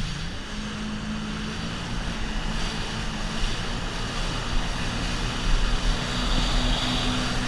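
Jet ski engine running steadily at speed, its pitch climbing back up right at the start and then holding, over the hiss of water spray and wind.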